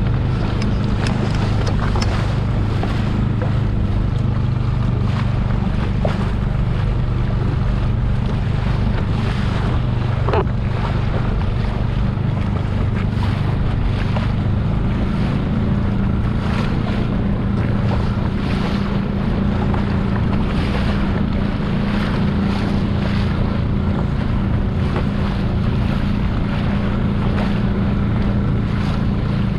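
Mercury outboard motor running steadily as the skiff moves along, with wind buffeting the microphone and water splashing along the hull.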